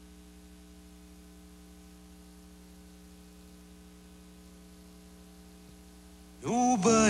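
Steady low electrical hum with faint hiss, the blank stretch between spots on a VHS tape transfer. About six seconds in, a sung jingle with music starts abruptly and is much louder.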